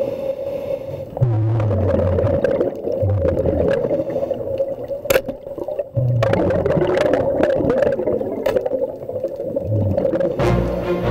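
Underwater sound through a diver's camera housing: a scuba diver breathing on a regulator, with low rumbles of exhaled bubbles about every three seconds and a few sharp clicks. Music comes in near the end.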